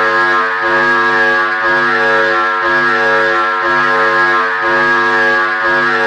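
Synthesized emergency-alert alarm drone: a loud, steady chord held at one pitch over a hiss, with a low note pulsing about once a second.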